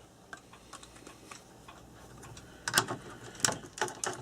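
Sharp metallic clicks and taps of a hand tool working on a nut, sparse and faint at first, then a few louder clicks in quick pairs in the second half.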